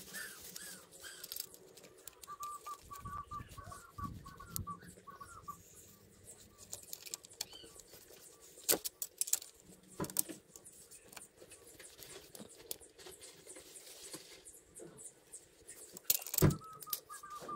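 Scattered metal clicks and clinks of hand tools and parts being handled, with a few sharper knocks later on, and a run of short high chirps about two to five seconds in.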